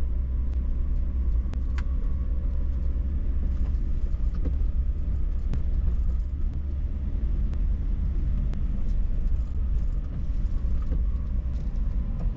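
Car driving slowly through city streets, heard from inside the cabin: a steady low road and engine rumble, with faint sharp ticks about once a second.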